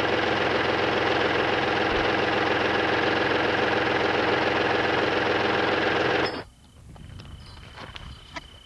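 A vehicle engine idling steadily, heard close up, cutting off abruptly about six seconds in. After that it is much quieter, with a faint steady high tone and a few light clicks.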